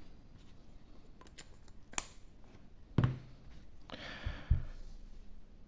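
Handling noise from a pocket bit screwdriver and a titanium folding knife: a few sharp small metal clicks, then a brief rub with a couple of soft knocks about four seconds in.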